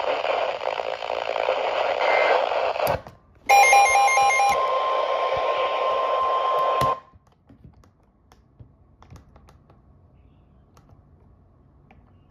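Weather radio receiver hissing with static, then after a click and a short gap a steady warning alarm tone near 1 kHz, with rapid beeping over its first second; the tone cuts off suddenly about three seconds later and only faint clicks follow.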